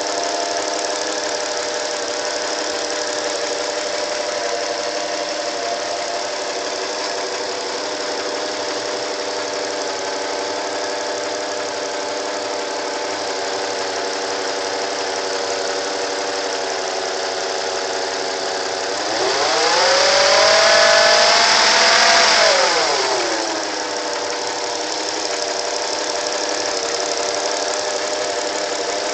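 1988 Acura Legend V6 engine idling steadily with a noise the owner calls weird and cannot explain. About two-thirds of the way through it is revved once, the pitch rising, held for a couple of seconds, then falling back to idle.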